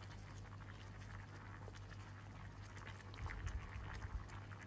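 A spoon gently stirring cooked beans in a pot, faint, with a few soft scrapes and knocks against the pot from about three seconds in, over a steady low hum.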